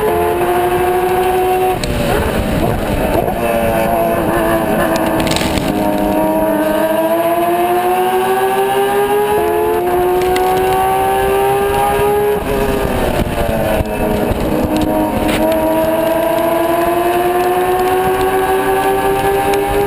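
Porsche race car engine under hard acceleration on track. Its pitch climbs through the gears with quick upshifts, then falls as it brakes and downshifts for a corner, about two seconds in and again about twelve seconds in, before climbing again.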